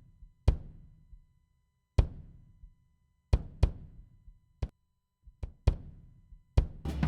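Sparse single drum hits, about eight at uneven spacing, each sharp with a short ringing decay, leading into a full drum-kit groove that starts at the very end.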